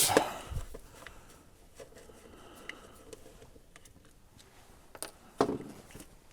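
Scattered small clicks and taps of hands working the wiring inside a chain hoist pendant controller while its wires are pulled off their spade connectors, with a low thump about half a second in and a louder knock about five and a half seconds in.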